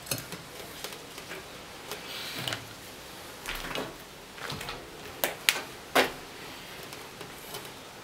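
Scattered metallic clicks and knocks from handling the parts of a cut-open refrigerator compressor, with three sharp, louder knocks about five to six seconds in.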